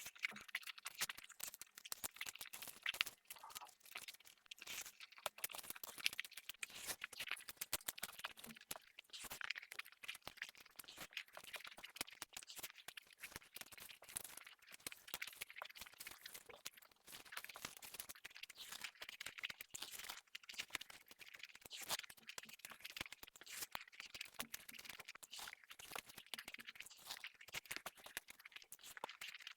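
Close-miked eating: chewing and crunching food with mouth sounds, a dense, irregular run of small crackles and clicks.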